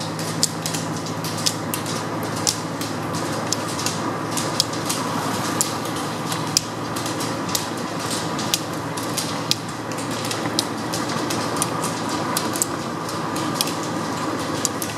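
Carbide pole tips of a pack of roller skiers striking asphalt: irregular sharp clicks, about one or two a second, over a steady rolling rumble of wheels and a vehicle on the road.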